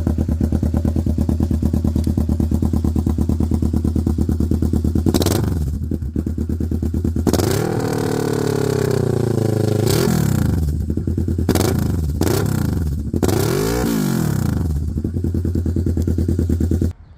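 Kawasaki Ninja 650 parallel-twin engine with an SC Project aftermarket exhaust idling steadily, then revved. There is one long rev that slowly falls back, followed by four quick throttle blips before it settles back to idle. The sound cuts off suddenly near the end.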